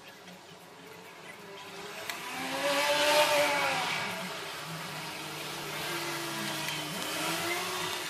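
A vehicle passing by, its noise swelling to a peak about three seconds in and fading, with an engine tone that rises and falls in pitch. A quieter engine sound follows near the end.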